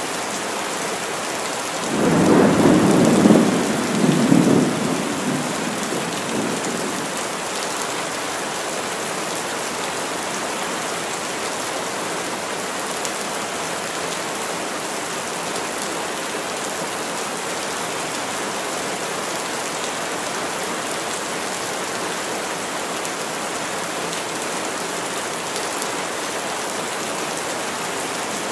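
Heavy rain falling steadily through the trees. About two seconds in, a loud roll of thunder swells twice and dies away within about five seconds.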